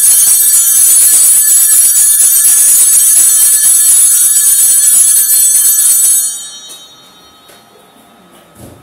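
Altar bells shaken continuously during the Eucharistic prayer of a Catholic Mass: a loud, bright jangle of many high overlapping tones that stops abruptly about six seconds in.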